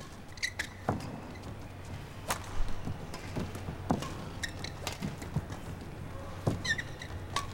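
Badminton rally: a shuttlecock struck back and forth by rackets with sharp cracks about every second and a half, with short squeaks of shoes on the court and dull footstep thuds between strikes.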